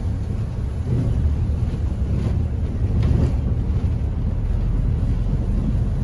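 Steady low rumble of a Mercedes-Benz O500 RS 1836 diesel coach, heard from inside its passenger cabin.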